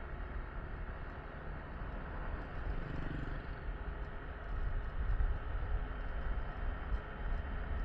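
Riding noise on a Yamaha Tricity 155 three-wheeled scooter: heavy wind rumble on the microphone over a steady hiss of road and engine noise, growing a little louder about five seconds in.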